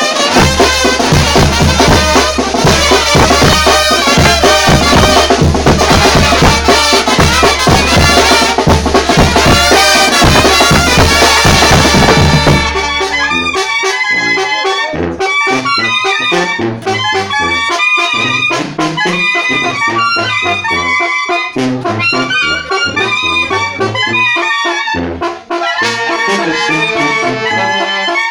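Mexican banda brass band playing: trumpets and trombones over a low bass line and drums. It is loud and full with crashing cymbals for the first dozen seconds, then thins to lighter brass phrases with separate bass notes.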